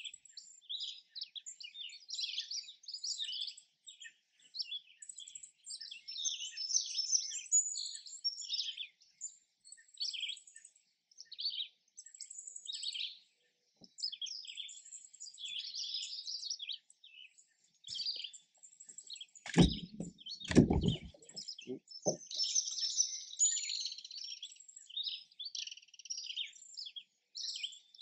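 Many songbirds chirping and singing in a steady overlapping chorus of short high calls. About two-thirds of the way through, a cluster of low thumps and knocks lasting about two seconds stands out as the loudest sound.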